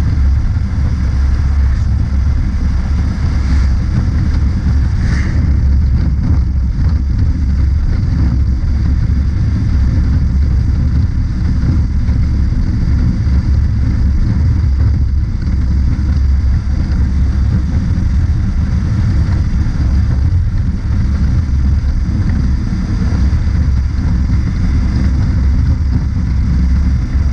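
Steady wind rush over the microphone from a Honda CB500X cruising at road speed, with its parallel-twin engine running underneath.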